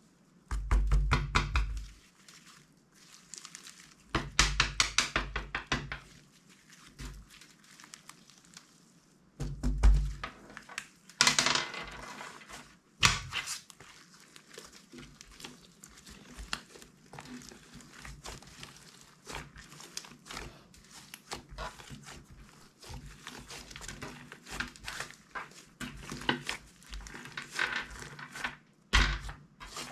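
Slime being squeezed, stretched and folded by hand. There are two runs of rapid wet clicks and pops, one near the start and one about four seconds in, and a thump about ten seconds in. Softer squelches and crackles run through the rest.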